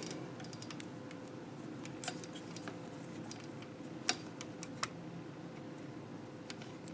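Faint scattered clicks and taps of a multimeter test lead and its probe tip being handled and set against a circuit board, two sharper ticks about four and five seconds in, over a faint steady hum.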